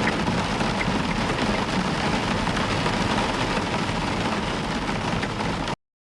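Heavy rain falling steadily on a roof, with a low rumble underneath, cutting off abruptly near the end.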